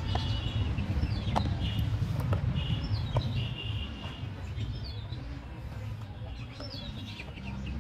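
Small birds chirping, short quick calls every second or two, over a steady low rumble. A few faint clicks come from a screwdriver driving screws into a plastic toy bus body.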